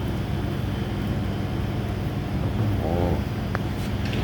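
A steady low mechanical hum. A short voice sound comes about three seconds in, followed by a small click.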